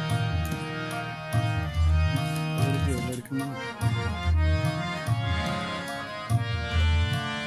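Harmonium playing a melodic instrumental introduction over held reed tones, with a low pulse repeating about once a second underneath.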